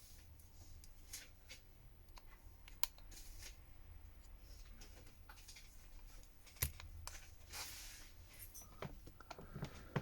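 Faint clicks and light scraping of a smartphone's internal parts being handled as the Redmi Note 11's motherboard is pried loose and lifted from its frame, with a few sharp ticks, the loudest about three seconds in and again past the middle.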